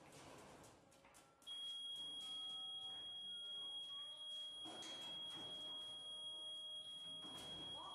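A steady, high-pitched electronic alarm tone starting about a second and a half in and holding unbroken.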